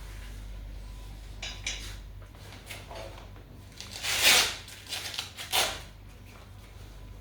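A blood-pressure cuff being handled on the arm: a few short rasping rustles, the loudest about four seconds in and another about a second and a half later.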